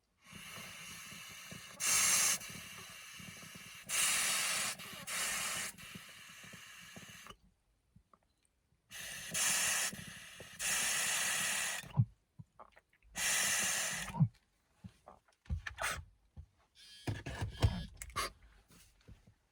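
A person drawing a dab hit and blowing out the vapour in long breathy hisses, four strong ones with short pauses between, followed by a few light clicks and knocks near the end.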